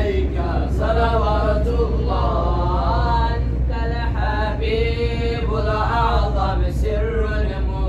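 Background music: a chant-like song with a voice singing long, wavering lines over a steady low bass.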